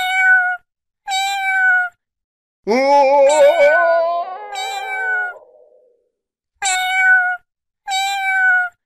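Domestic cat meowing: four short meows of even pitch, and in the middle one long, wavering meow that starts low, rises and fades out. Dead silence lies between the calls.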